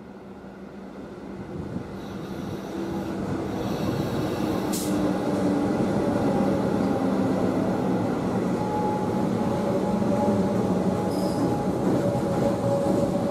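Comeng electric suburban train approaching and running along the platform, growing louder over the first four seconds and then holding steady. The wheel and track rumble carries a few thin whining tones.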